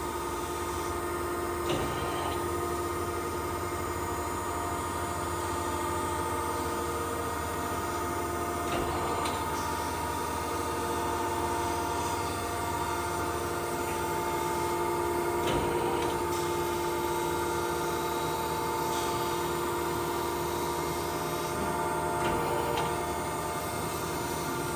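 Okamoto ACC-2040DX2 hydraulic surface grinder running in automatic mode, grinding vise jaws: a steady machine hum with several steady tones from the spindle and hydraulics, and a faint knock about every seven seconds.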